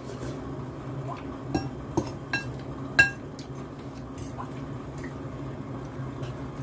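A metal fork clinking against a glass bowl while eating noodles: about four sharp, ringing clinks between one and a half and three seconds in, the loudest near three seconds, over a steady low hum.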